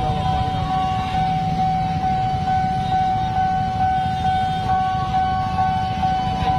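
Railway level-crossing warning alarm sounding one steady high tone, over the low running of idling motorbikes and cars.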